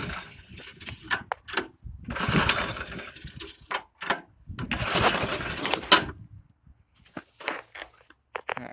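Warm snowblower engine being cranked in three tries of about a second and a half each, each dying out without staying running: a hard warm restart. Light clicks and rattles follow near the end.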